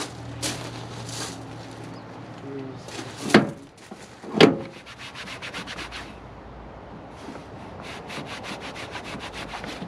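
Quick rubbing or scraping strokes against a surface, with two sharp knocks about three and a half and four and a half seconds in, then fast, even strokes about five or six a second.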